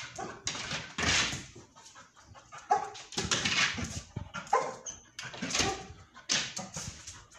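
Labrador puppy searching a plywood scent wall: repeated noisy bursts of sniffing and scuffling against the wall, with a couple of short whines near the middle.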